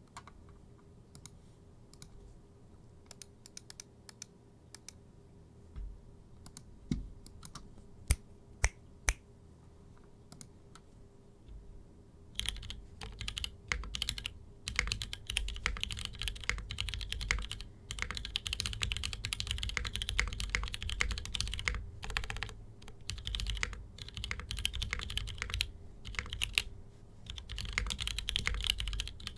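Typing on a Mode65 mechanical keyboard with GMK keycaps, an aluminium full plate and an isolated top mount. Its lubed linear switches are built from Cherry MX Black bottoms and stems, JWK black tops and 60 g Gateron springs. Scattered single keystrokes for about the first twelve seconds, a few of them louder, then fast, continuous typing.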